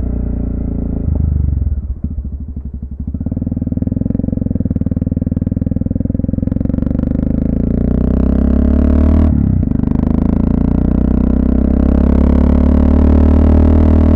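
Honda FMX650's single-cylinder four-stroke engine running on the move. About two seconds in the engine note drops and its separate firing beats can be heard, then it builds again. After a brief dip about nine seconds in, it pulls steadily.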